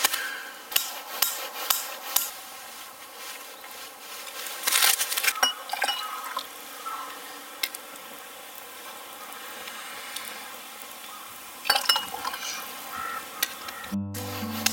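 Scattered sharp clicks and clinks of camp cookware and utensils being handled, with a dense cluster about five seconds in and another near twelve seconds. The sound cuts off near the end and music begins.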